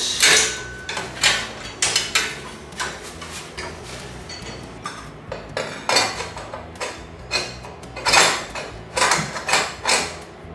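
Metal wrench and bolts clinking and knocking against the exhaust of a Yamaha WR250R dirt bike as the exhaust is unbolted for removal: a run of short, irregular metallic clinks.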